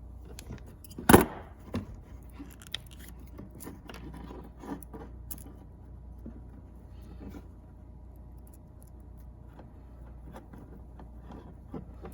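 Small clicks, scrapes and rustles of a CAT6 cable being handled and its outer jacket stripped with a hand tool, with one sharp snap about a second in.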